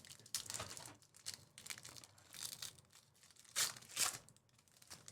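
Football card pack wrappers being torn open and crinkled, in irregular rustles and rips. The two loudest rips come about three and a half and four seconds in.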